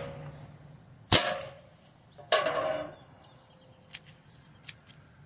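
Crosman SNR357 CO2-powered pellet/BB revolver firing two shots about a second apart, each a sharp pop with a short ringing tail. A few faint clicks follow near the end.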